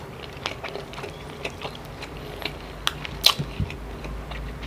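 Close-miked chewing of spicy chicken-innards adobo: an irregular string of small wet mouth clicks and smacks, a few louder ones a little past the middle.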